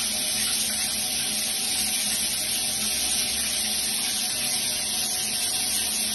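Overhead rain shower head running, water spraying down in a steady, even hiss.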